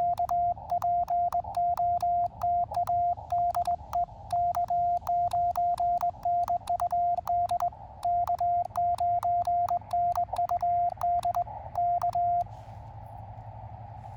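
Elecraft KX2 CW sidetone: a steady tone of about 700 Hz keyed in Morse code by hand on KXPD3 paddles worked as a cootie (sideswiper), with a click at each stroke. The keying stops about twelve seconds in, leaving the receiver's faint band noise.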